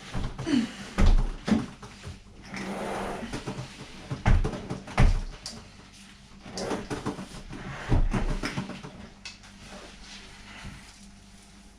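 Knocks, low thuds and scraping from handling the back of a washing machine while it is being unplugged from the mains, with the heaviest bumps about a second in and again around four to five seconds in.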